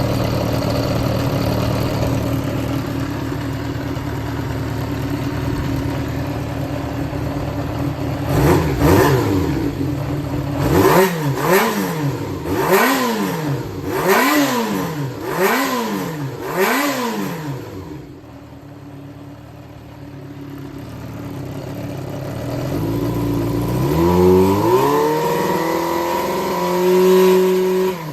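Yamaha XJR400 (4HM) air-cooled inline-four engine running on a test start: idling steadily, then blipped through about six quick revs, settling back, and revved up and held near the end. It runs without abnormal noise, in the seller's words in excellent condition.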